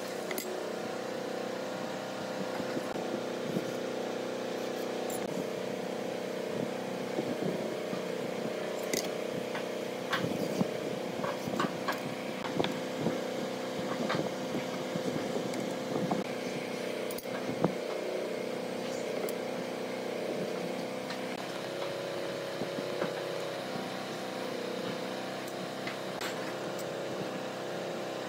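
Steady mechanical hum of a machine running in the background, with scattered light taps and clicks of a steel square and ruler being set on the wood and a marker drawn along it.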